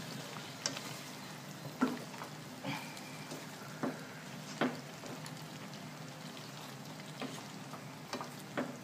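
Chicken liver stew sizzling in a metal wok while a silicone ladle stirs it, with several short, irregular knocks and scrapes of the ladle against the pan.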